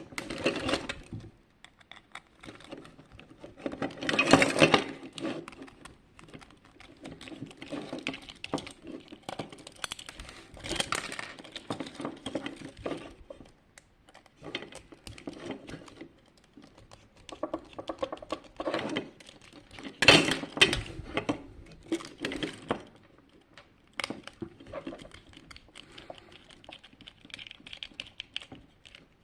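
Hard plastic parts being handled: irregular clicks, taps and scraping, with the loudest clatter about four seconds in and again about twenty seconds in.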